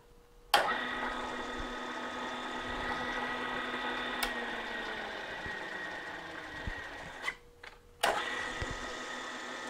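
Bridgeport milling machine's spindle motor running a drill bit to drill out a broken heat-shield screw, a steady whine with several held tones. It is switched on about half a second in, cuts out near seven seconds and comes back on a second later.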